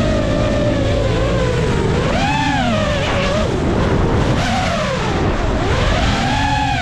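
FPV drone's propellers whining, the pitch swinging up and down several times as the throttle changes, over a steady rumble of wind and background noise.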